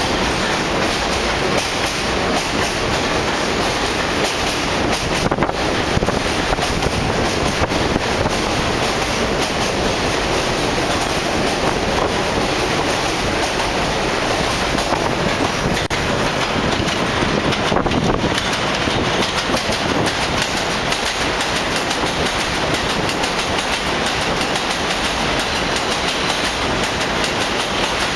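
New York City Subway R46 train pulling out of an elevated station, its cars rolling past close by with a steady running noise of wheels on rail.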